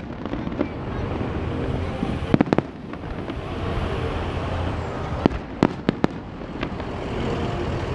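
Aerial fireworks shells bursting at a distance: a quick cluster of three or four sharp bangs about two seconds in and a run of separate bangs around five to six seconds, over a steady outdoor background noise.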